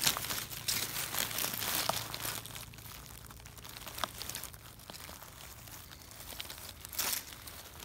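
Dry leaf litter and grass rustling and crackling under a hand brushing them aside on the forest floor, busiest in the first couple of seconds and with a short louder burst near the end.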